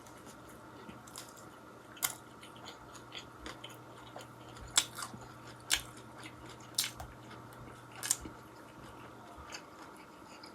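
A person chewing a mouthful of homemade bacon cheeseburger and chips close to the microphone, with a handful of sharp, wet mouth clicks spread through the chewing.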